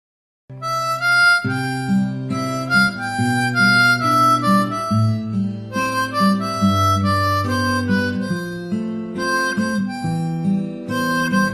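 Background music: a melody of held notes over sustained chords, starting suddenly about half a second in after dead silence.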